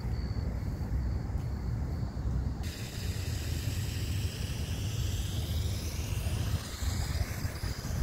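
Outdoor ambience on a walk: a steady low rumble, with a short high-pitched chirp repeating about three times a second. About two and a half seconds in, the chirp drops out and a steady hiss comes in.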